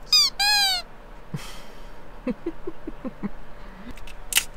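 A Maltese dog whining twice, a short high whine and then a longer one falling in pitch, begging for food it has just been refused. A sharp click comes near the end.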